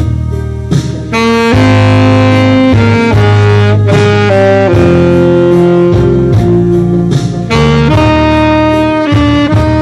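Instrumental music: a lead instrument plays a slow melody of long held notes over a backing track with a steady bass line.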